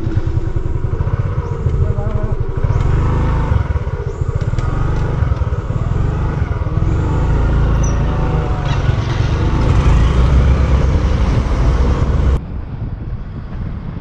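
Motorcycle engine running with heavy wind buffeting on a helmet-mounted microphone as the bike rides along the road. About twelve seconds in the sound drops abruptly to a quieter rush of wind.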